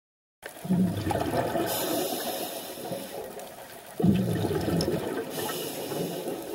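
A scuba diver breathing through a regulator underwater. Exhaled bubbles gurgle in two bursts, about a second in and again about four seconds in, and each is followed by a high hiss.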